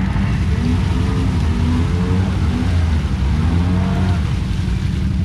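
Side-by-side UTV engine revving up and down several times under load in deep mud, its spinning tyres churning and throwing mud.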